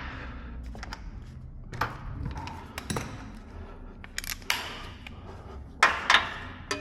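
Scattered metallic clicks, taps and short scrapes of hand tools and suspension hardware being handled while a front control arm is refitted, with two sharper knocks a little before the end.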